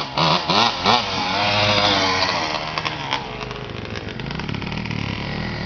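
Yamaha Blaster's single-cylinder two-stroke engine revving hard and raspy, rising and falling in pitch as it holds a wheelie, with a few sharp throttle blips in the first second. About four seconds in it drops to lower, steadier running.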